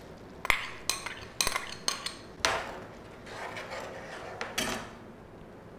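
Steel ladle clinking against a glass bowl and a steel pan as fried peas are scraped into simmering gravy: a quick run of sharp clinks, then softer scraping and stirring.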